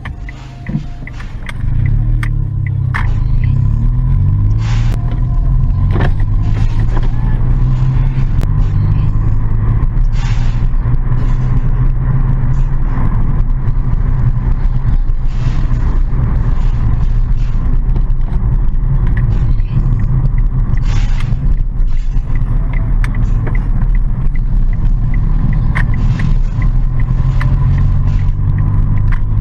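Car engine running under way with an automatic transmission, a steady low rumble that swells about a second and a half in and then holds, its pitch shifting as the drive goes on. Scattered light clicks sit over it.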